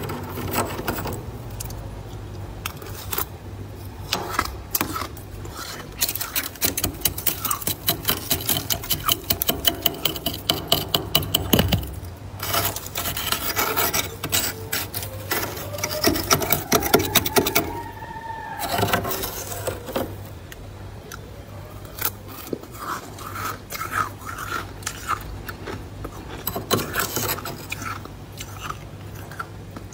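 Built-up frost in a freezer compartment being scraped by hand: runs of rapid rasping strokes with crunches of loose frost, heaviest in the first half. About two-thirds of the way through comes a squeak that rises and falls.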